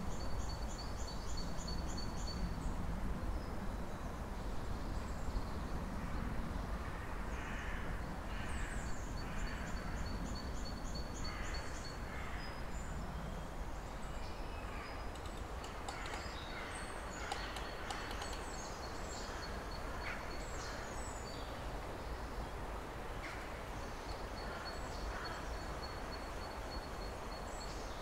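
Small woodland birds singing and calling: rapid high trills, a thin held whistle and scattered chirps, busiest through the middle, over a steady low rumble of ambience.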